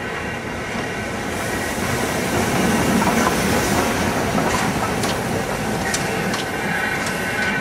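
A train running on the track, its noise growing louder about two seconds in, with sharp wheel clicks over the rail joints in the second half.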